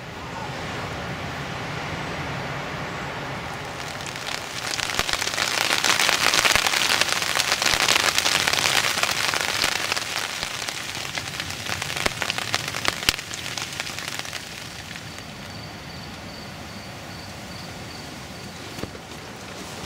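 Rain pattering on a tent, a dense crackling patter that swells into a heavy downpour a few seconds in and eases again after about ten seconds. A faint steady high tone sounds near the end.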